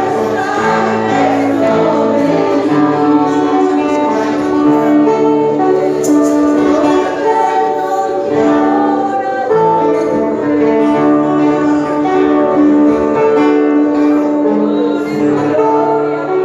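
Worship music: a group of voices singing over long held chords.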